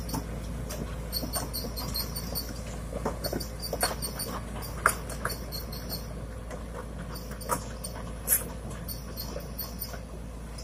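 Sumitomo SH210 crawler excavator travelling on its tracks: the diesel engine runs steadily under rhythmic high squeaking from the track links and rollers, with occasional sharp clanks.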